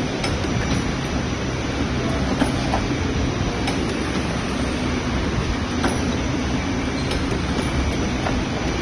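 Continuous dough divider-rounder running: a steady mechanical rumble and hum, with a few sharp light clicks and clinks scattered through it.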